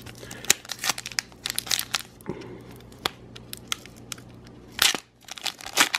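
Foil Pokémon card booster pack crinkling and crackling in the hands as it is worked open, with a louder tearing rip of the foil a little before five seconds in.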